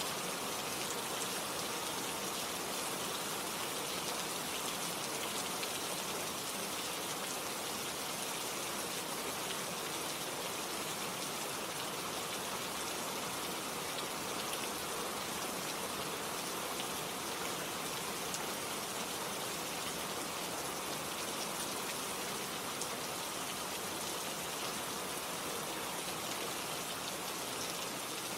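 Steady rain falling: an even hiss with many fine drop ticks, played as a relaxing rain sound.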